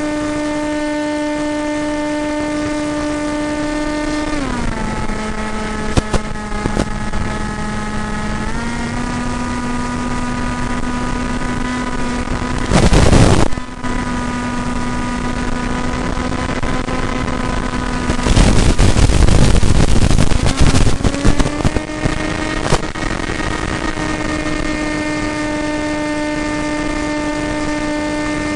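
AXN Floater-Jet's electric motor and propeller running with a steady whine. It drops in pitch about four seconds in, rises a little around eight seconds, and climbs back to its first pitch near twenty-one seconds. Two bursts of loud rushing noise cut across it, a short one near thirteen seconds and a longer one from about eighteen to twenty-one seconds.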